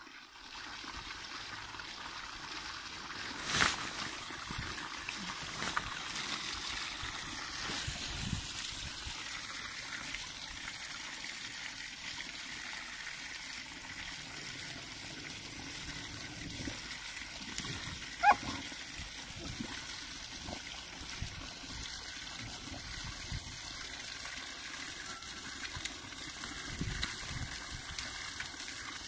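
A thin stream of spring water falling onto stones, a steady splashing trickle, while a dog drinks from it. Two sharp clicks, about four seconds in and just past the middle.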